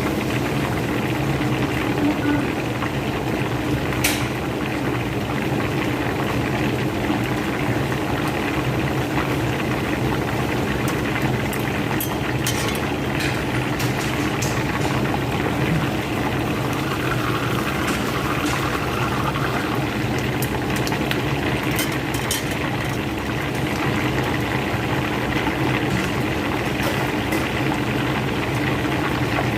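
Whole chicken deep-frying in hot oil: a steady bubbling sizzle, with a sharp pop every few seconds.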